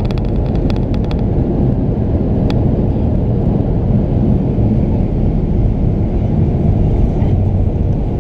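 Steady low roar of a Boeing 737-800's engines and airflow heard inside the passenger cabin. A quick run of small rattling clicks sounds in the first second, and one more click comes about two and a half seconds in.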